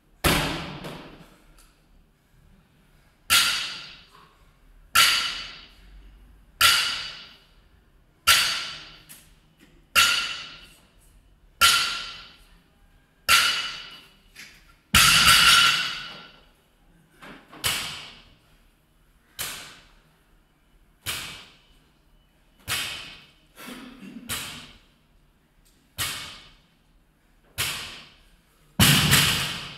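A loaded barbell with rubber bumper plates hits the gym floor again and again during deadlift reps, about sixteen times at roughly 1.6-second intervals. Each impact leaves a short metallic ringing tail.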